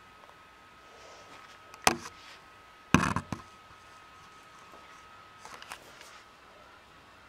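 Handling noise: a sharp click about two seconds in, then a louder short cluster of clicks and rustling about a second later, with a few faint clicks near the end, over a faint steady high hum.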